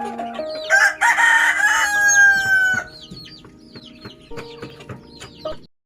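A rooster crows once, about a second in: a loud call of about two seconds that sags slightly in pitch at the end. Background music with a stepping melody and rapid high chirps runs underneath, and all sound cuts off suddenly near the end.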